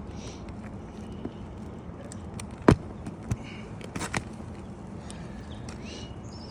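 A sharp knock a little under three seconds in, followed by a few fainter clicks, over a steady background hum.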